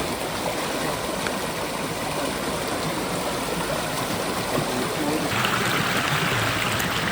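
River water flowing in a steady rush; it grows louder and brighter about five seconds in.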